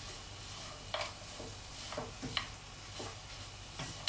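Silicone spatula stirring and tossing cabbage salad in a metal pot, with a handful of short scrapes and knocks against the pot.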